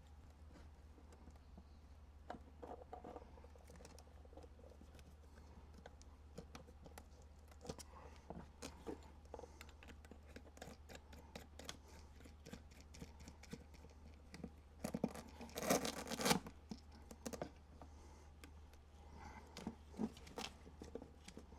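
Hands working on parts and wiring in a plastic equipment case: scattered small clicks and scrapes, with a louder, denser scrape lasting about a second and a half around the middle of the second half, over a steady low hum.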